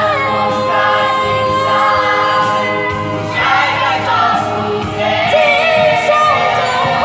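A choir singing a Khasi Christian hymn, several voices holding long, steady notes and moving slowly from one pitch to the next.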